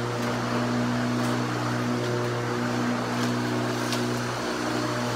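Walk-behind lawn mower running steadily while cutting grass, with a brief dip in its pitch about four and a half seconds in.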